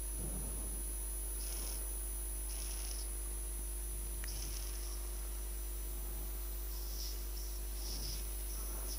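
Steady electrical hum from the endoscopy room equipment, with a few short, soft hisses scattered through it.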